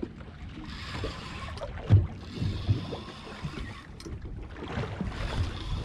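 Wind and sea noise around a small open boat, with a few low irregular thumps, the strongest about two seconds in.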